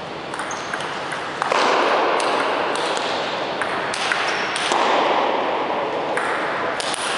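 Table tennis rally: a celluloid ball clicking sharply off the rubber paddles and the table, a string of separate knocks, over a steady hall background of noise.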